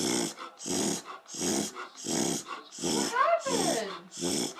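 Beagle reverse sneezing: a run of rapid, forceful inhaled snorts through the nose, about two a second, in a steady rhythm, with a brief rising-and-falling whine-like note about three seconds in. Reverse sneezing is the harmless spasm of the soft palate that beagles are prone to.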